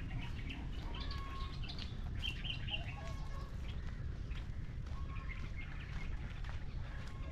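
Birds chirping and calling in short, scattered chirps, over a steady low rumble.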